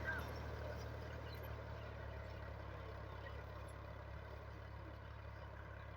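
Al Ghazi 640 tractor's diesel engine running steadily with a low drone that slowly fades.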